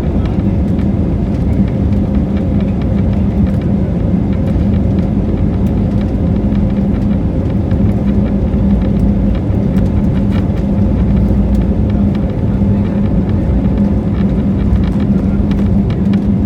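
Cabin noise inside an Airbus A320 airliner on the ground: a loud, steady jet-engine drone and rumble with a constant low hum.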